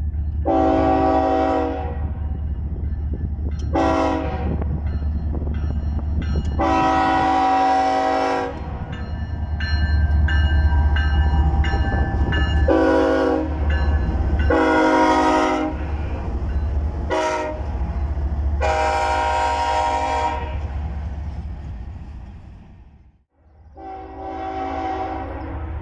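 Diesel freight locomotive air horns sounding a string of about seven long and short blasts over the steady low rumble of a passing freight train. After a cut near the end, one more horn blast sounds from an approaching train.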